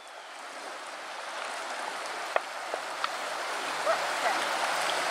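Shallow creek riffle running: a steady rush of moving water that fades in over the first seconds and grows louder, with a few faint clicks around the middle.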